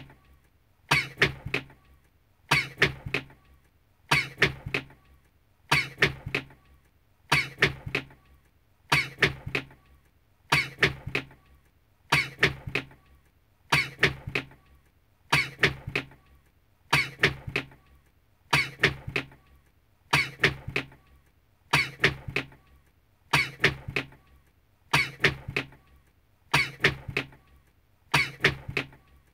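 A man's sneeze, the same "achoo" looped and repeating identically about every 1.6 seconds.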